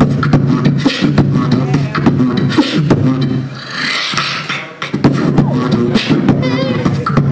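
Three-man beatbox group performing through microphones: a fast kick-and-snare rhythm of mouth clicks over a steady low bass note. A little past halfway the beat and bass drop out for about a second under a long hissing, cymbal-like sweep, then the beat comes back in.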